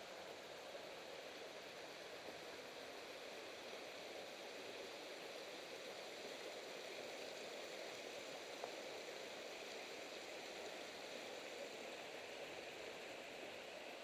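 Mountain stream rushing over rocks, a faint steady wash of water that grows a little louder partway through, with a faint tap or two.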